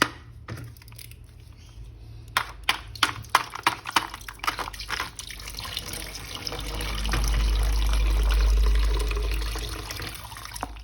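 Scattered sharp clicks and rattles of plastic being handled, then a steady rush of running water, like a tap, that swells up a little past halfway and fades away near the end.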